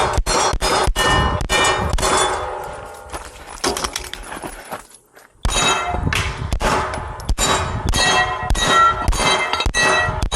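Rapid handgun fire with steel plate targets clanging and ringing as they are hit: a fast string of shots and rings, a pause of about two seconds near the middle, then another fast string.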